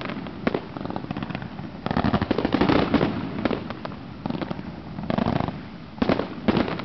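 A consumer fireworks cake firing volleys of aerial shots, with bangs and crackling breaks overhead. A dense run comes about two seconds in, then shorter clusters of shots near the end.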